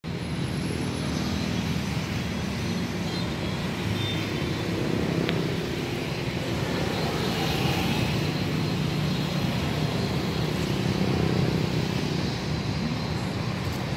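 Steady background traffic noise, a continuous low hum of passing vehicles.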